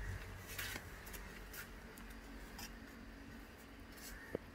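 Faint handling noises as a small fish is unhooked by hand from a fishing line: scattered light clicks and rustles, with a sharper click near the end.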